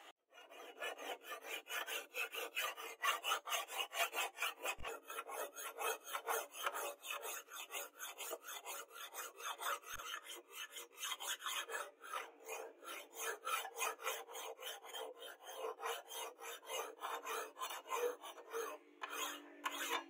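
Flat hand file rasping back and forth over a steel knife blade cut from a tractor disc plough, in quick, even strokes, shaping and smoothing the blade.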